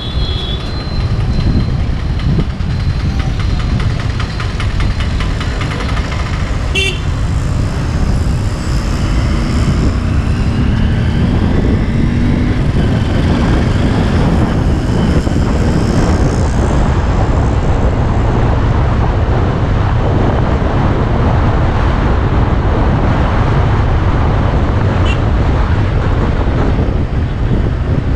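Steady low rumble of wind and road noise from a vehicle moving through night traffic, with other vehicles passing and a short horn toot about seven seconds in.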